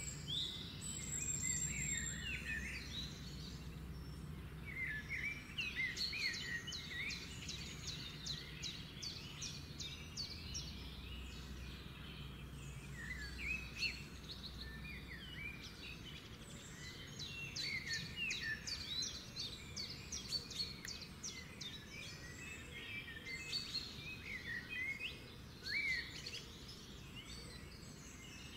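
Small birds chirping and calling throughout in quick, high, rising and falling notes, over a low steady hum.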